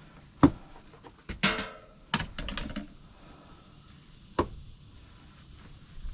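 A handful of sharp, separate knocks and clatters, like things being handled and moved about, with a short creak about one and a half seconds in.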